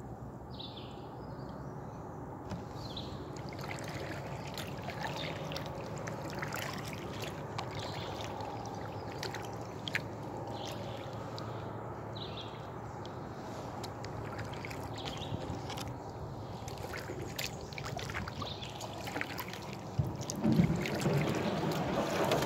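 Kayak paddle strokes in still swamp water: water dripping and splashing off the paddle blades in short repeated strokes, getting louder near the end.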